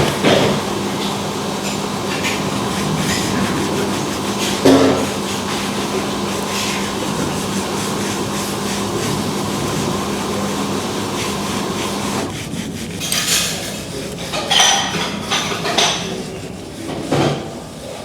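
A steady electric motor hum that cuts off suddenly about twelve seconds in, followed by scattered light knocks and clinks.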